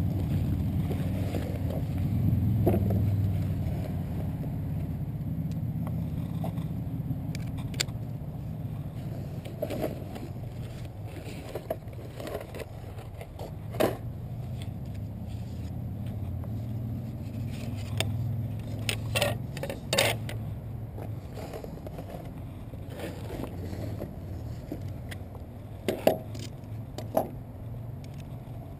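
Tools and a bag being handled on a wooden bench: scattered clicks, knocks and rustles of metal and plastic, the loudest a pair of sharp knocks late on, over a steady low rumble.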